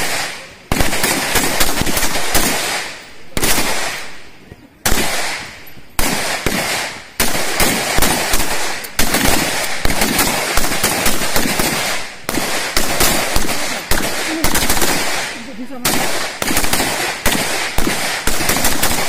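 Several Pindad SS2 V4 5.56×45 mm NATO assault rifles fired together by a line of shooters. Sharp cracks come in rapid, overlapping strings, each with an echoing tail, broken by short pauses.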